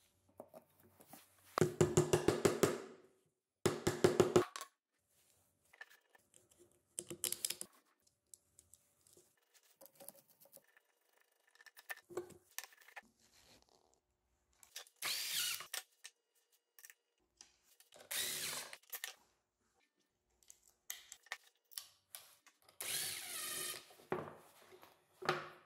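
Bolts being driven into the pivot holes of a plywood frame clamp with a small hand driver: two bursts of fast, even clicking near the start, then scattered knocks and a few longer scrapes as the wooden clamp parts are handled on the bench.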